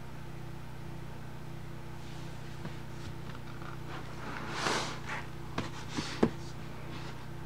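Hardcover sound book handled and turned over: a rustling swish past the middle, then three quick knocks of the board covers against the table, the last the loudest, over a steady low hum.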